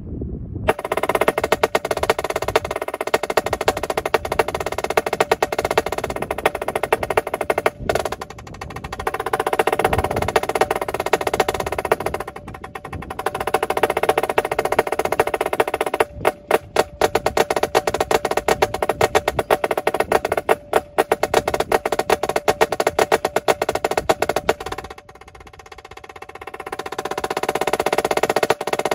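Solo on a Yamaha snare drum played with sticks: fast rolls and rapid strokes that swell and fade, with passages of separate sharp accents a little past halfway. Near the end it drops soft, then builds into a loud roll.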